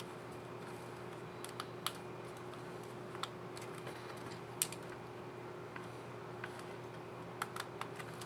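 Scattered small plastic clicks and taps from a laptop keyboard's keycap and scissor mechanism being handled and pressed, spaced a second or more apart with a quick cluster near the end, over a steady low hum.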